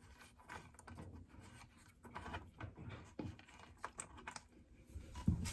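Scattered light clicks, taps and scrapes of small hard parts being handled, such as toilet mounting hardware, bolts, washers and caps, during a toilet install.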